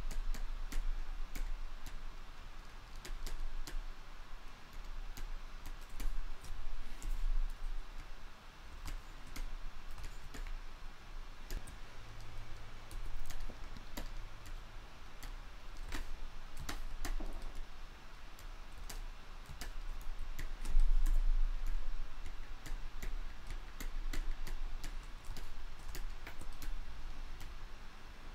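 Irregular light clicks and taps from computer input devices used for digital sculpting, over a faint steady low hum.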